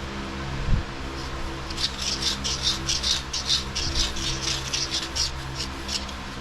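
Rapid back-and-forth scrubbing strokes on metal, about three a second, as the steering knuckle's hub mounting surface is cleaned smooth by hand, after a single thump under a second in.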